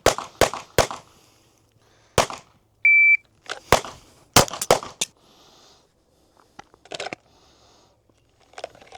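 Glock 9mm pistol firing: four shots, a shot timer's start beep, then a fast string of about six shots. A few fainter knocks follow.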